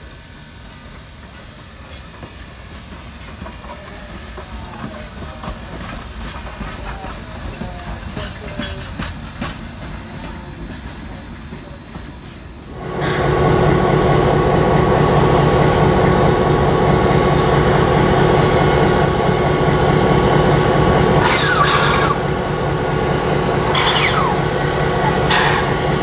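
A steam locomotive approaching slowly with a steady hiss of steam, growing louder. About halfway through it gives way suddenly to the loud, steady idle of an ex-Southern Pacific EMD SW900 diesel switcher's eight-cylinder 567 engine. Near the end there are three short rising-and-falling whistle sounds.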